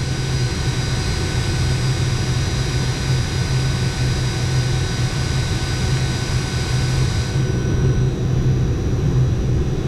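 Refrigeration vacuum pump running steadily as it pulls a deep vacuum on a mini-split line set, a constant motor hum and drone. The upper hiss thins out about seven seconds in.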